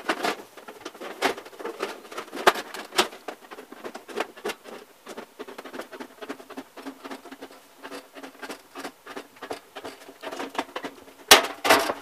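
Aviation snips cutting lengthwise along a thin sheet-metal duct pipe: a rapid, irregular run of crunching snips with a light metallic ring. Two loud clanks near the end.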